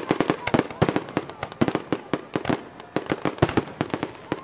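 Aerial fireworks shells bursting in a rapid barrage, several sharp bangs a second with no let-up.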